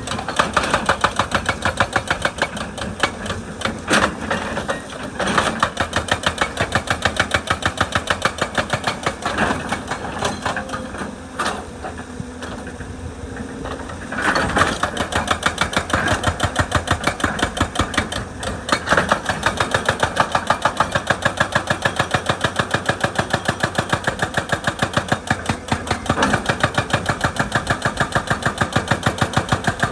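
Excavator-mounted hydraulic breaker hammering rock in a rapid, steady stream of blows over the running diesel engine, easing off briefly about twelve seconds in before hammering again.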